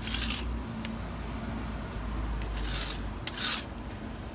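Four short rasping, rubbing noises, each under half a second, over a low rumble.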